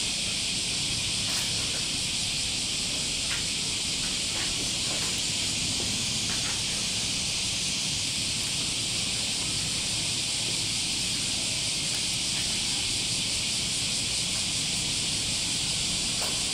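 Steady high-pitched hiss with a few faint clicks.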